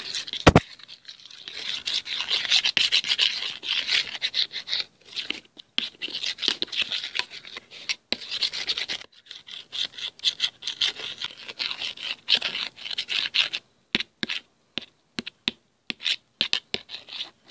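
A utensil stirring a dry, crumbly cocoa-powder and icing-sugar mixture in a metal baking tin: rapid, repeated gritty scrapes against the tin, with a sharp knock about half a second in. The strokes break up into scattered scrapes near the end.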